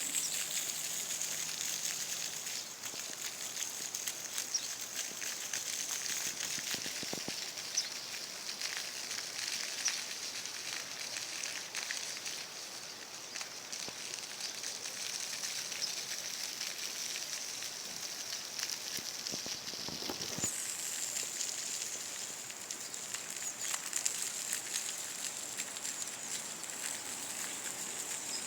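Small waterfall splashing: a steady high hiss with many small crackling ticks. The pitch of the hiss shifts slightly upward about two-thirds of the way through.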